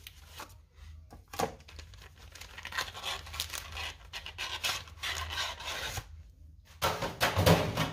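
MRE entree pouch being handled and pulled from its flameless ration heater bag: irregular rustling and rubbing of the packaging. There is a louder, harsher rustle near the end.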